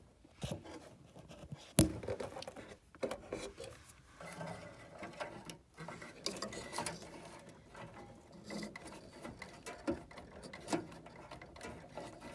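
Hand-work noises on a gas furnace's pilot tube fitting: scattered light clicks, taps and scraping of metal parts being handled and threaded, with a sharp click about two seconds in.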